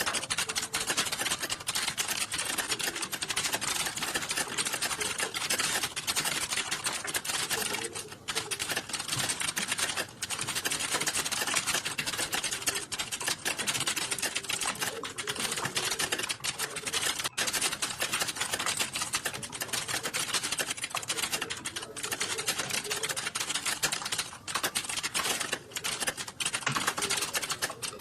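Fast, continuous typing on a computer keyboard: a dense stream of key clicks, broken by a few brief pauses.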